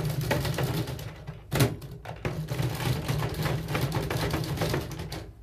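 Rock 'Em Sock 'Em Robots toy being played: rapid clattering of plastic clicks as the two robots punch at each other, worked by their hand controls, with one louder knock about a second and a half in.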